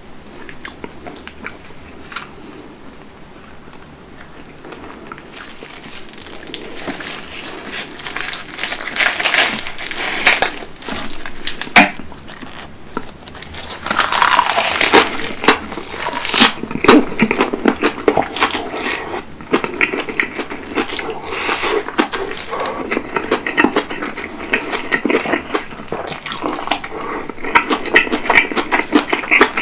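Close-up eating sounds: chewing kimchi with rice, then crisp crackling and wet crunching as a roasted seaweed (gim) wrap is bitten and chewed. It is quieter at first and becomes dense and crackly after about five seconds.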